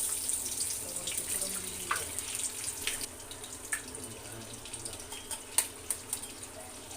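Eggs sizzling as they are cracked into hot oil in a wok. The sizzle is loudest for the first three seconds, then eases, and there are a few sharp clicks near the end.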